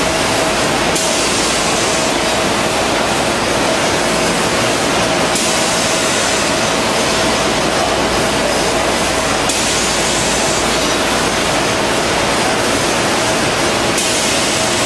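Automatic packing line running: the horizontal flow-wrap packing machine and its feed conveyor make a loud, steady noise with a constant hum.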